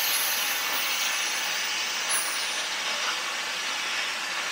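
ESAB Cutmaster 40 handheld plasma cutter cutting metal plate after piercing it: the arc and its jet of compressed air make a steady, loud hiss.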